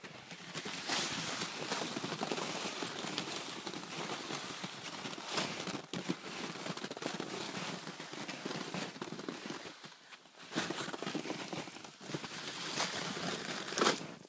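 Crunching footsteps in Kahtoola MICROspikes on hard-packed snow, with a loaded plastic pulk sled scraping through the snow behind. The crunching runs steadily, with brief lulls about ten and twelve seconds in.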